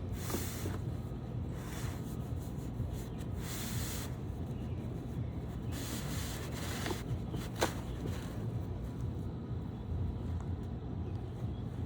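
Rustling and scraping of packaging as a boxed camp chair is unpacked, in intermittent patches, with a sharp click about eight seconds in. A steady low wind rumble sits on the microphone underneath.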